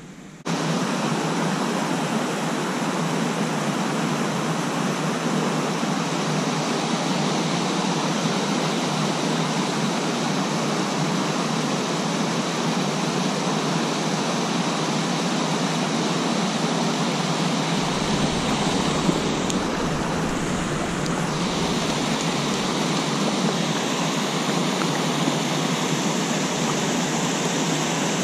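Flowing creek water rushing steadily, starting abruptly about half a second in.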